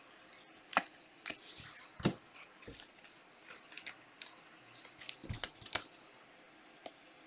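Trading-card packs and cards being handled and opened: an irregular run of sharp clicks and short rustles.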